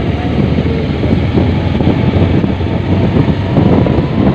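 Motorcycle running at road speed, heard from the rider's seat, with heavy wind buffeting the microphone in a steady low rumble.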